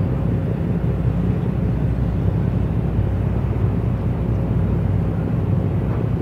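Marine diesel engines of harbour work vessels running steadily: a low, even rumble with a faint steady hum above it.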